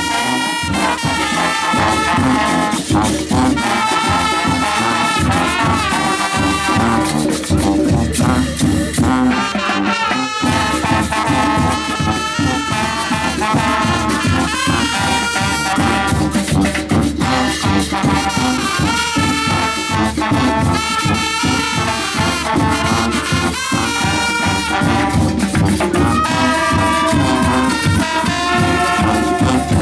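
Marching show band playing a tune: a brass section of trumpets, trombones and sousaphones over snare and bass drums, with a short break about ten seconds in.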